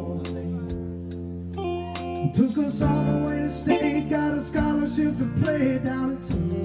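Live acoustic music: a man singing held notes with acoustic guitar.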